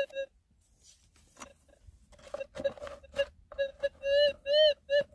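A metal detector's target tone over a buried target: a run of quick beeps at one mid pitch, about three a second, lengthening into warbling tones near the end. It shows metal, taken for a gold nugget, still in the ground. A few knocks of rock and handling come in the quieter first half.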